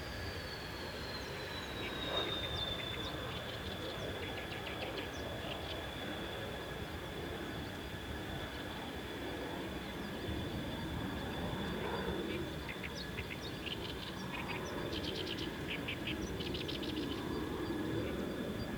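Small wild birds chirping in quick clusters of short notes, more often in the second half. Behind them, a high whine falls in pitch over the first few seconds and then holds steady, over a low mechanical rumble.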